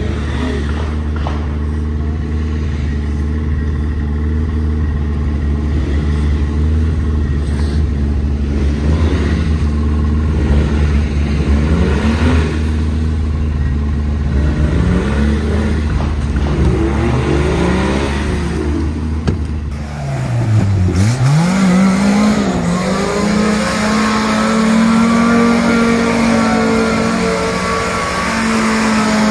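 Engine of a modified off-road 4x4 revving up and down as it climbs through deep mud. About two-thirds of the way in, a Suzuki Samurai's four-cylinder engine dips in revs, then is held high and wavering while it spins donuts with its wheels spinning.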